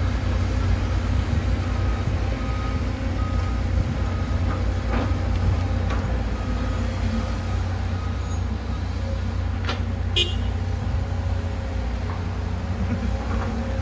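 Heavy diesel earthmoving machinery, excavators and dump trucks, running with a steady low rumble, while a backup alarm beeps in an even repeating pattern through most of the first two thirds. A few sharp knocks sound from the work, the clearest about ten seconds in.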